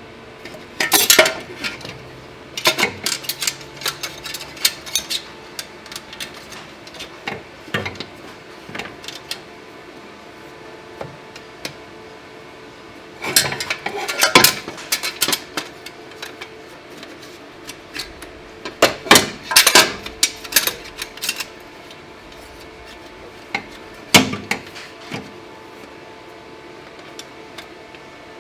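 Metal tools and parts clinking and clanking as they are handled, in irregular bursts of knocks and rattles with pauses between.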